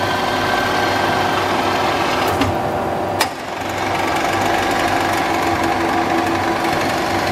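WMW DLZ 630 centre lathe running, a steady mechanical drone with a whine from its drive and gearing. Two short clicks break it about two and a half and three seconds in.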